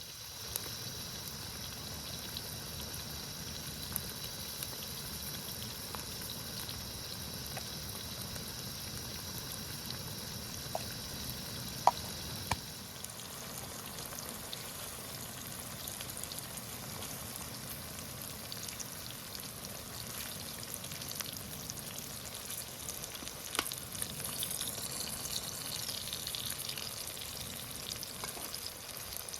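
Food sizzling as it fries in a pan, a steady hiss with scattered small clicks and pops. A sharp click comes about twelve seconds in, after which the high sizzle eases off.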